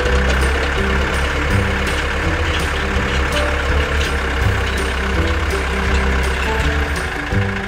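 Tractor engine running with a steady low rumble, as a cartoon sound effect over light background music.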